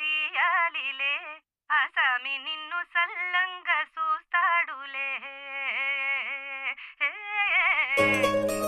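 A high female voice singing a wavering, wordless melody with heavy vibrato, unaccompanied, in a string of short phrases. Near the end a full band led by mandolin comes in.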